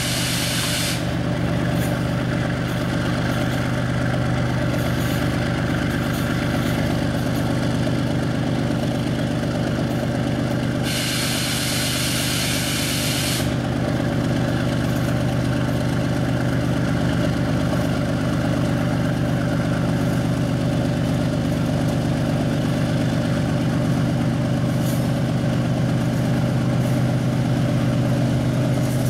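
Diesel locomotive engine running steadily at an even note. A high air hiss is heard in the first second and again for about two and a half seconds starting about eleven seconds in, typical of air being released from the train's brakes.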